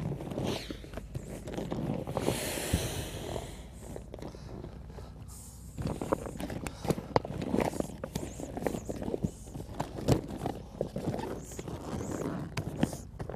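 Air rushing out of the open valves of a Sea Eagle FastTrack inflatable kayak as the hull is rolled up and pressed flat, the loudest rush about two seconds in, with the kayak's skin crinkling and knocking under the hands.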